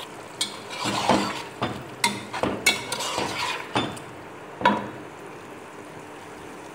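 Metal spatula stirring chicken pieces frying in masala in a pot, clinking and scraping against the pot about a dozen times over the first five seconds, with a faint frying sizzle underneath that carries on alone near the end.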